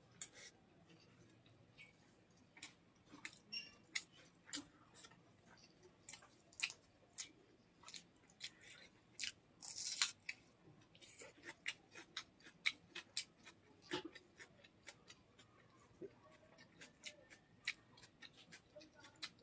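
Eating sounds: a person mixing rice and chicken gizzard curry with the fingers and chewing mouthfuls of it, a string of irregular wet clicks and mouth smacks. The loudest moment comes about ten seconds in, as a handful goes into the mouth.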